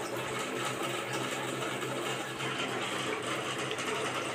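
Electric water pump running with a steady hum and hiss.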